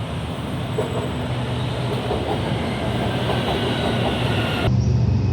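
A train running, with a steady rumble and rattle and a low hum; near the end it cuts abruptly to a louder stretch of the same kind of running noise.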